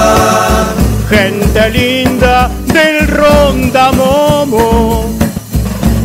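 Song music: a melody sung with vibrato in phrases over a steady beat.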